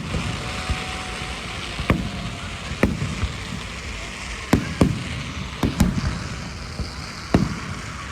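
Fireworks going off: about seven sharp bangs of aerial shells at irregular intervals, over a steady rushing background.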